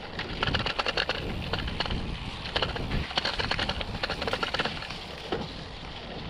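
Mountain bike ridden over rough trail: tyres crunching and the bike rattling in quick irregular clicks, over a low rumble of wind on the microphone.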